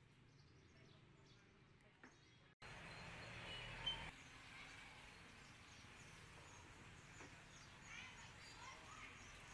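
Near silence, then, about two and a half seconds in, quiet street ambience cuts in abruptly: an even background hiss and low hum with scattered short chirps, and one brief sharp sound about four seconds in.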